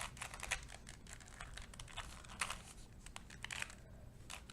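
A 2x2 Rubik's cube being scrambled by hand: quick, irregular plastic clicks and clatters as its layers are twisted, several a second.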